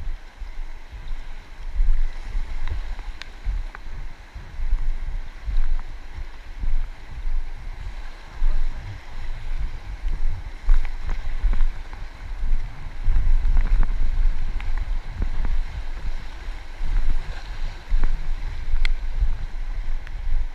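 Wind buffeting the microphone in uneven gusts over the steady rush of river water around an inflatable kayak, with scattered small splashes and ticks.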